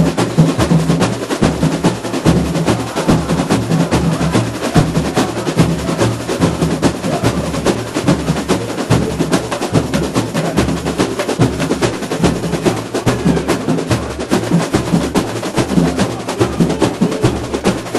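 Samba school bateria playing an instrumental batucada: deep surdo bass drums keep a steady pulse under dense, fast snare and small-drum strokes.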